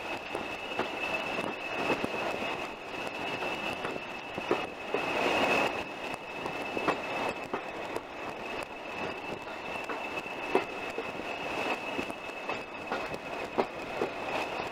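Class 20 diesel locomotive with an English Electric 8SVT engine running along the line, with a steady high whistle over the rumble of engine and wheels. Irregular sharp knocks of the wheels over rail joints come through it, and there is a brief swell of rushing noise about five seconds in.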